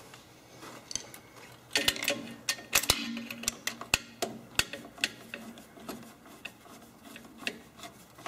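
Irregular light metallic clicks and taps of a hand nut driver working the bolts on a Tecumseh snowblower engine's intake pipe while the carburetor is refitted.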